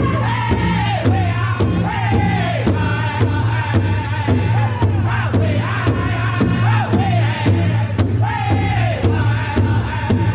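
Northern-style powwow drum group singing a contest song: many men's voices in high, repeated falling phrases over a large hide powwow drum struck in unison with a steady beat.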